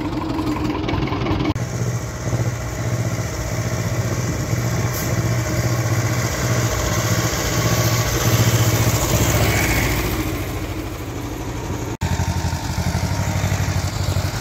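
Small vintage tractor's diesel engine running steadily with an even low pulse, swelling louder about two-thirds of the way through as the tractor drives close by. The sound changes abruptly twice.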